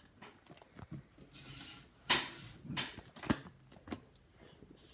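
Handling noise from an iPad being repositioned on its stand: scattered clicks and knocks, the loudest a sharp knock about two seconds in.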